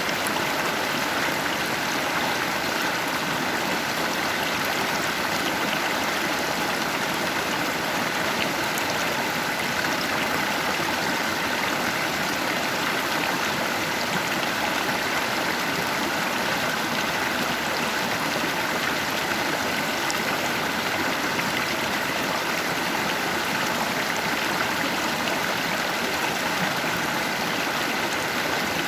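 Stream current running steadily over rocks, an even rushing and babbling of flowing water.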